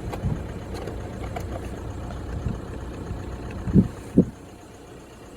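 Seat Alhambra 2.0 TDI diesel engine idling, heard from inside the cabin. Two short bumps come about four seconds in.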